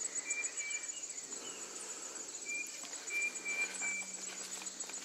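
Insects trilling in a steady, fast-pulsing high chorus, with runs of short, even high notes repeating three or four times.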